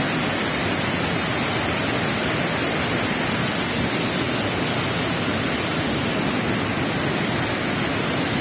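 Waterfall in rainy-season flow, a loud, steady rush of falling water with a strong hiss.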